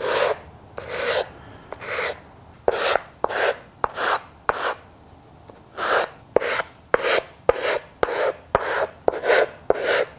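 Sanding block with sandpaper rubbed by hand in short strokes along the edges of a wooden box lid, easing the sharp edges. Brief rasping strokes, spaced out at first, a pause a little before the middle, then quicker at about two a second with a few light ticks.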